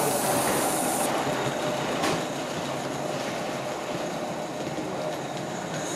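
Gauge 1 live-steam Shay geared locomotive running past hauling log wagons: a high hiss that stops suddenly about a second in, then steady running noise of the wheels on the rails, with one sharp click about two seconds in.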